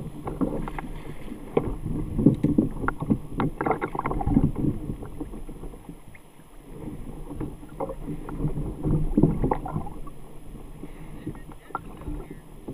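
Irregular knocks, rattles and water splashing around a plastic sit-on-top fishing kayak while an angler plays a fish on a bent rod, busiest in the first few seconds and again later, with a brief lull in the middle.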